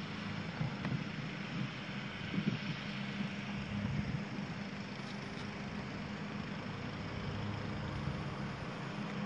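A steady low hum under a constant even rushing noise, with no distinct events.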